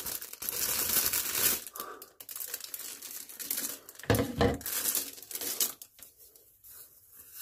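Clear plastic packaging bag crinkling and tearing as it is worked open by hand, densest in the first couple of seconds, then in scattered rustles with a thump about four seconds in.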